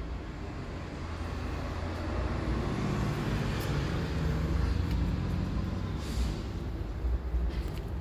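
A motor vehicle's engine rumbling, growing louder through the middle and easing off again, with a short hiss about six seconds in.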